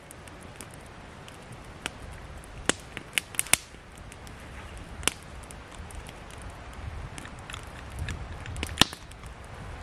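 Wood campfire crackling, with scattered sharp pops and snaps, the loudest one near the end.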